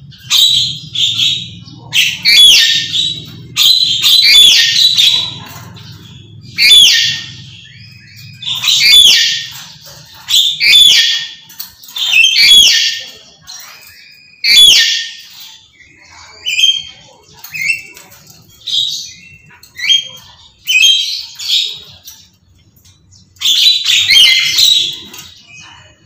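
Black-capped lory screeching over and over, loud harsh calls about every two seconds. After the middle the calls turn shorter and softer for a few seconds, then loud screeches return near the end.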